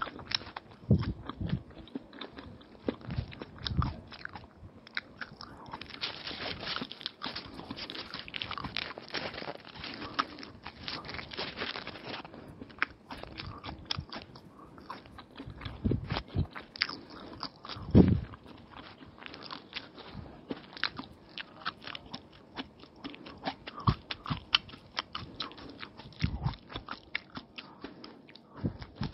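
Close-up chewing and biting of a soft egg roll (paratha wrapped around egg, onion and cucumber): many small wet mouth clicks and crunches, busiest for several seconds after the first few, with one louder low thump about two-thirds of the way through.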